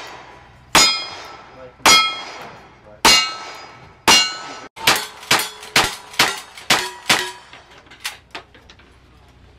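Single-action revolver shots, four of them about a second apart, each followed by the ring of a steel target being hit. After a short gap comes a faster string of about six shots, roughly two a second, from a lever-action rifle, also ringing steel.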